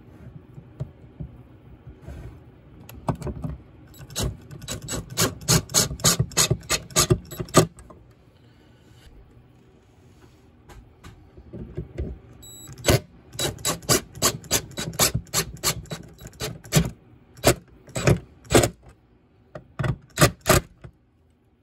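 A screw being driven through the forged steel lizard hook into a wooden board with a screwdriver, giving sharp, regular clicks about five a second in two spells.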